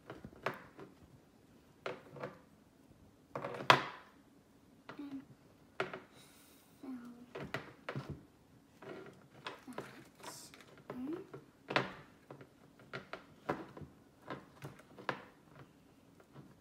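Irregular light taps and knocks of a plastic Play-Doh teeth mold being handled, pressed and set down on a wooden table, with a couple of louder knocks.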